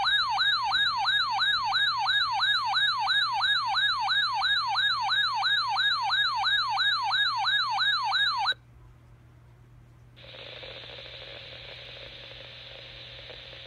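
Electronic weather-alert warbling alarm tone, sweeping up and down about three times a second, which cuts off abruptly after about eight and a half seconds; after a short gap a steady radio hiss comes in, ahead of a tornado warning broadcast.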